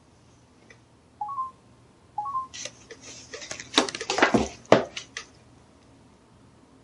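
Two short electronic beeps about a second apart, each a quick rise from a lower to a higher note, then a few seconds of clattering clicks and knocks.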